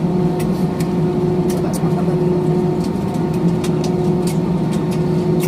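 Steady cabin drone inside an Airbus A320 taxiing after landing: a constant hum with several fixed tones over a low rumble, with scattered small clicks and rattles.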